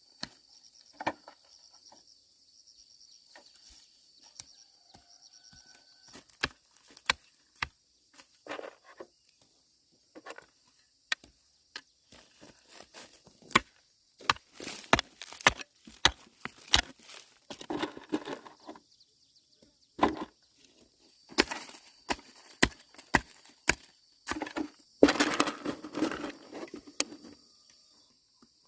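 Irregular sharp chopping strikes from a hand tool, sparse at first and then coming quickly and loudly through the second half, over a steady high-pitched insect buzz that drops out in the middle.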